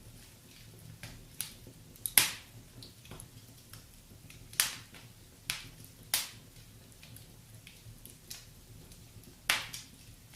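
Wood fire in a fireplace crackling, with scattered sharp pops; the loudest comes about two seconds in, with others near the middle and one near the end.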